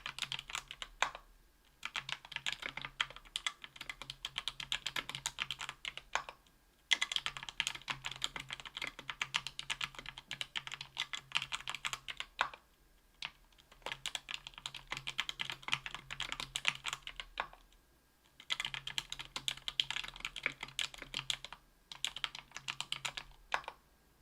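Fast typing on a Tofu 60% aluminium keyboard with lubed Thic Thock Marshmallow linear switches (68 g), aluminium plate and GMK keycaps. The keystrokes come in runs of several seconds, broken by short pauses, and stop just before the end.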